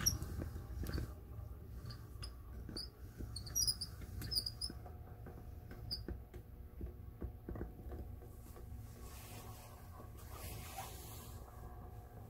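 Display turntable slowly rotating a heavy LEGO model: a low steady rumble with scattered clicks, and small high squeaks in roughly the first six seconds.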